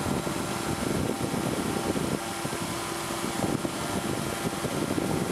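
Powered parachute's engine and propeller running steadily in flight, an even drone mixed with wind rush.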